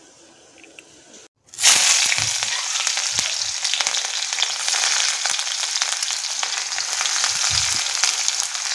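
Sliced onions sizzling and crackling in hot oil in a kadai, the sizzle starting abruptly about a second and a half in and then running on steadily.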